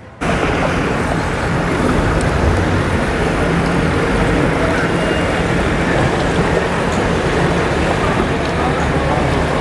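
Motorboat engine running steadily at low speed as the boat passes close by, with wind on the microphone; the sound cuts in suddenly a moment in.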